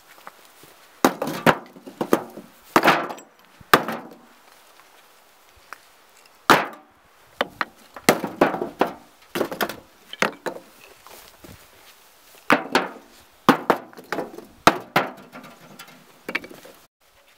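Old red bricks thrown one after another into a wheelbarrow, each landing with a hard clatter on the growing heap of bricks. There are about fifteen landings, in uneven groups with short pauses between them.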